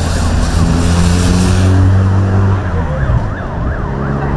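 Escort sirens of a motorcade yelping in quick rising-and-falling sweeps, about four a second in the second half, over engine and road noise from the passing vehicles. A low steady engine drone falls in pitch a little before the sweeps grow strongest.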